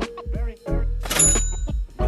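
Background music with pitched instruments over a steady percussive beat.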